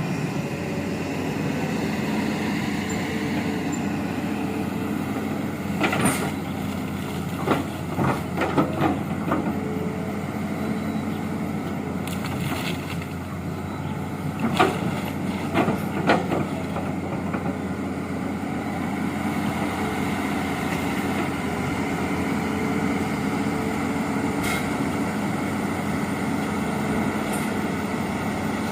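Amphibious excavator's engine running steadily, with a run of sharp knocks and clanks in the first half.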